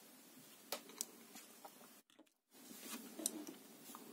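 Faint handling noises of a small soldered circuit board, an LED Christmas-tree kit, being turned in the hands and set on a wooden tabletop. Two small ticks come about a second in, then a short spell of light rustling and tapping near the end.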